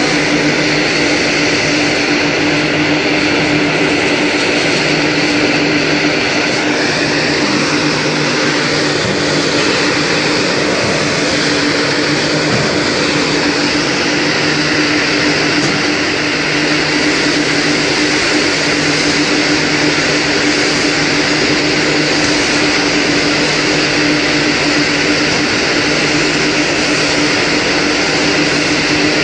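Date paste grinding machine running steadily, its rotor turning against the stator to grind dates fed from the hopper into paste: a loud, even whir with a steady low hum.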